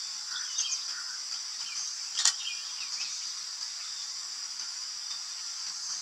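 Steady high-pitched drone of insects, with a few faint short bird chirps scattered through and one sharp click a little over two seconds in.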